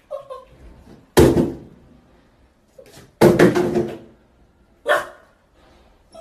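Small puppy barking: one sharp yap about a second in, a quick run of several barks around three seconds in, and one more bark near five seconds.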